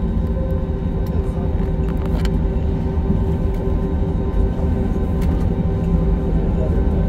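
Jet airliner cabin noise as the plane rolls on the ground: a steady low rumble with a constant whine from the turbofan engines.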